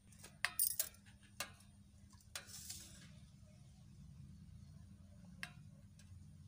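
A stainless steel pot clinking sharply several times as it is handled in the first second and a half, then a short splash as the fish-rinse water is tipped out of it, and one more light clink near the end.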